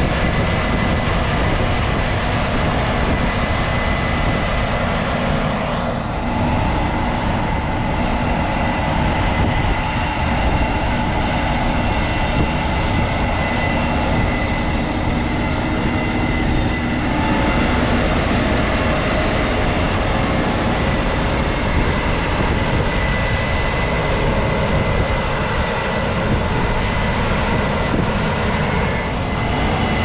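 Case IH 8250 combines running while harvesting wheat: a steady mechanical drone with a constant whine, changing about six seconds in and again around seventeen seconds.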